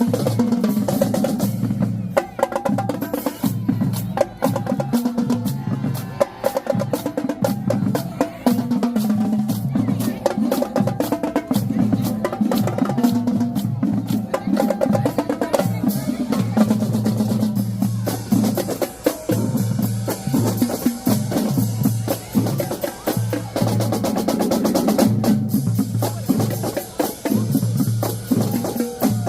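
Marching drumline playing a fast, continuous cadence: snare drums with rolls over tuned bass drums stepping between low notes.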